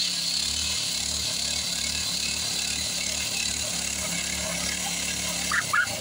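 Single-cylinder walk-behind-tractor engine of a homemade trike running with an uneven, pulsing beat, its low sound dropping away near the end. A small dog starts yapping in the last moment.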